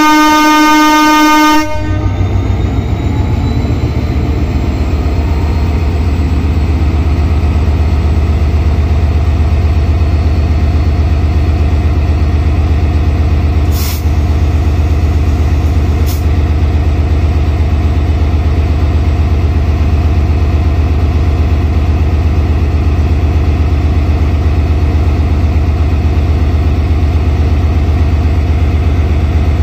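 A diesel locomotive's horn sounds, then cuts off sharply about two seconds in. After it, the standing diesel-electric locomotive No. 6607 runs on at idle with a deep, steady engine rumble, and two brief high hisses come around the middle.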